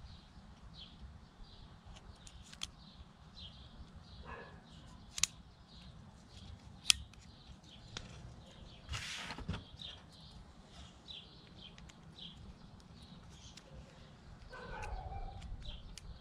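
Small metal clicks and taps from a precision screwdriver and its bits being handled on a table, two sharp clicks standing out as the loudest, and a brief rustle about nine seconds in. Faint bird chirps repeat in the background.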